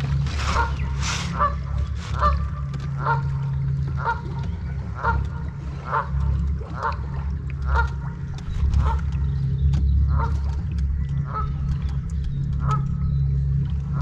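Waterfowl calling over and over, short calls about once a second, over a steady low rumble.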